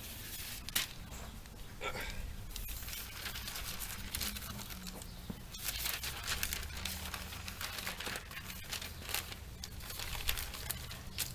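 Newspaper being handled and laid out, rustling and crinkling in spells with a few sharp crackles.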